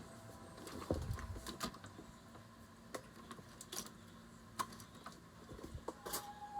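Scattered sharp clicks and light knocks of kitchen-appliance attachments being handled and tried in their sockets, with a duller thump about a second in.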